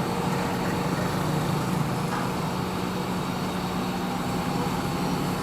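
Steady street traffic and vehicle engine noise: a constant low hum with an even wash of road noise and no distinct events.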